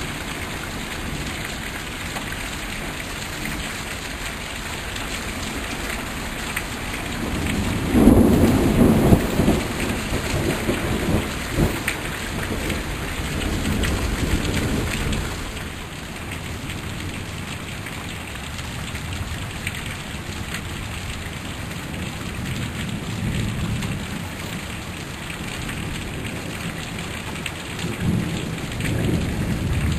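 Heavy rain falling steadily in a summer thunderstorm. About eight seconds in, a loud clap of thunder breaks and rumbles on for several seconds, and another roll of thunder starts near the end.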